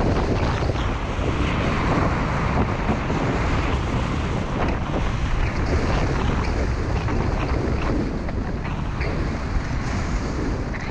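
Wind buffeting the microphone of a camera carried by a skier going downhill at speed, over the steady hiss and scrape of skis on packed snow.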